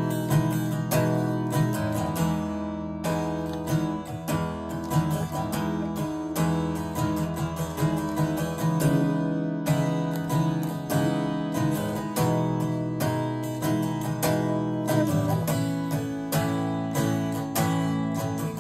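Steel-string acoustic guitar played solo, a brisk, steady run of picked and strummed notes over ringing chords.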